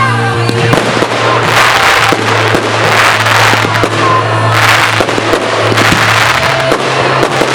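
Professional fireworks display: dense crackling and sharp bangs coming in repeated waves, with a short whistle about four seconds in, over music playing.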